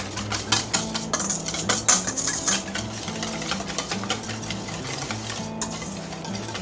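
Wire whisk beating thick barbecue sauce in a stainless steel mixing bowl: quick scraping, clinking strokes of the wires against the metal, busiest in the first half.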